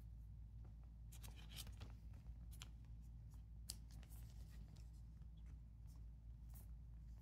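Faint scattered ticks and light rustles of hands handling a trading card and a thin clear plastic sleeve, over a steady low room hum.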